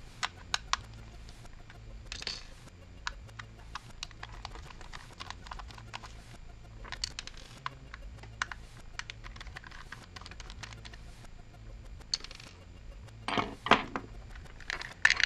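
Small, irregular clicks and ticks of a precision screwdriver bit working tiny Torx screws out of a plastic headphone earcup, with a few louder clicks near the end.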